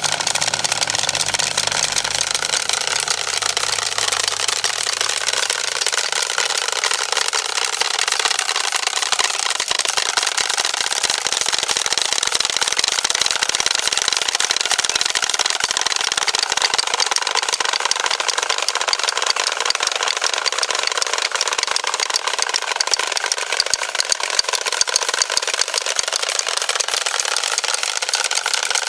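Wooden Easter rattles (Klappern) cranked without a break, a dense, rapid wooden clacking, the rattling that stands in for the church bells in Holy Week. A faint low hum fades out in the first few seconds.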